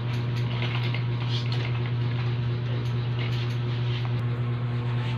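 Barber's scissors snipping hair in short irregular clicks, over a steady low hum.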